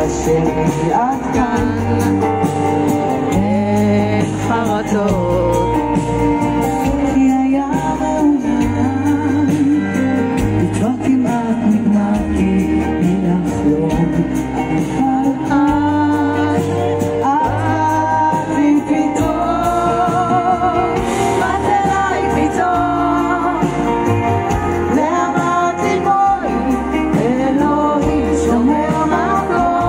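Live pop band performance: a woman singing a Hebrew song with vibrato over keyboard, drums and bass guitar.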